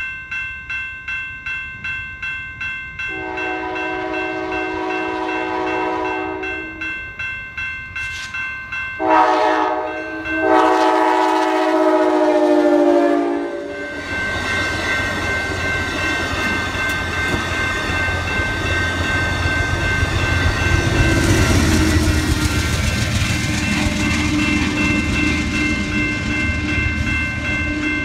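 Grade-crossing warning bell ringing in quick even strokes while an Amtrak passenger train sounds its horn for the crossing: a long blast about 3 seconds in, then two more blasts, the last one dropping in pitch as the locomotive passes. The passenger cars then rumble and clatter past on the rails.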